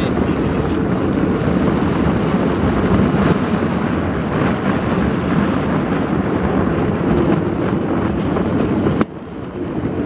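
Wind buffeting the microphone of a handlebar-mounted camera, mixed with tyre noise from a mountain bike rolling along an asphalt road. The noise drops suddenly about nine seconds in, then builds again.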